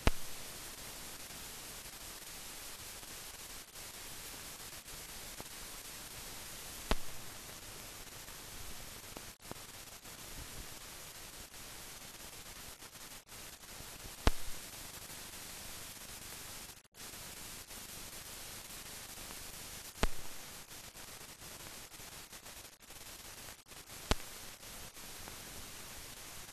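Steady hiss of a blank old film soundtrack, broken by a sharp click about every six or seven seconds and a few brief dropouts.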